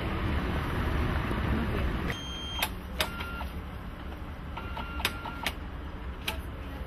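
Street and bus noise for about two seconds, then a bus ticket validator beeping and clicking several times as a card is pushed into it.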